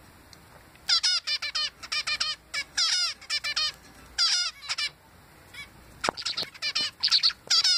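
Male zebra finch singing: a fast run of repeated nasal, buzzy notes beginning about a second in and lasting about four seconds, then a second shorter run after a brief pause near the end.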